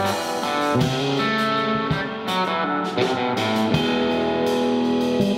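Electric guitar playing a blues-style lead: a run of picked single notes and short phrases, each ringing on.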